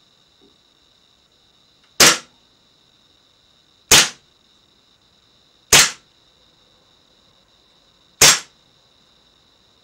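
Cybergun Desert Eagle CO2 airsoft pistol firing four single shots through a chronograph in a power test, each a sharp crack, spaced about two seconds apart.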